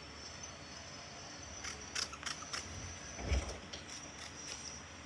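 Sheet of construction paper being handled, with a few short rustles and clicks about two seconds in and a low bump a little after three seconds.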